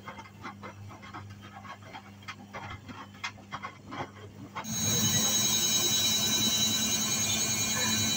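Irregular light clicks and taps over a low steady hum. Just past halfway, a much louder tonal music bed cuts in abruptly and carries on.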